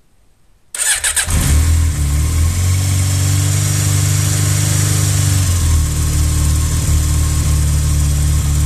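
Yamaha XJ 600 Diversion's air-cooled inline-four engine starting about a second in, then running steadily at idle. Its clutch basket has just been repaired.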